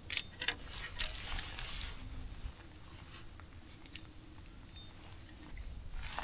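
Small clicks and rustles of a spinning reel and its braided line being handled and worked loose after knotting up, over a faint low rumble of wind on the microphone.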